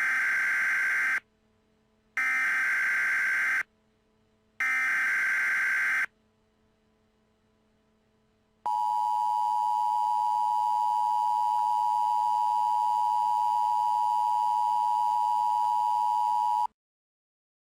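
Emergency Alert System alert opening: three harsh digital SAME header bursts about a second apart, then, after a short pause, the two-tone EAS attention signal (853 and 960 Hz) holding steady for about eight seconds. Together they signal an incoming emergency alert.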